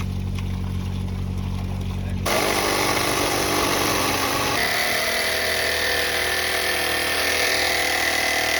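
An electric plumbing machine running: first a steady motor hum, then about two seconds in a sudden louder, steady hissing roar takes over.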